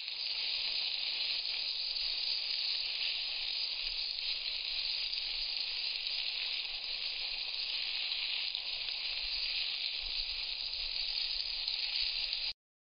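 Skewered cubes of marinated lamb sizzling steadily on a hot marble slab over a charcoal fire. The sizzling stops abruptly near the end.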